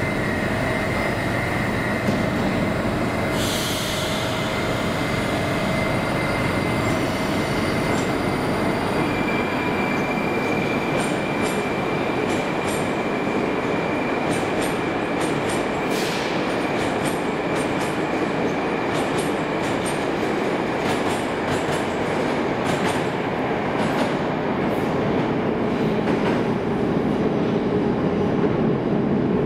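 Moscow 'Moskva' 81-765 metro train pulling out of the station and running away into the tunnel: steady wheel-on-rail rumble with a high whine that rises in pitch about ten seconds in. From about the middle on, a long run of sharp clicks as the wheels pass over the rails.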